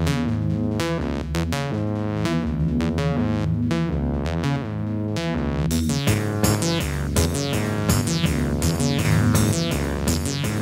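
Electronic music: a drum-machine beat under synthesizer notes. About six seconds in, a run of quick falling synth sweeps joins in.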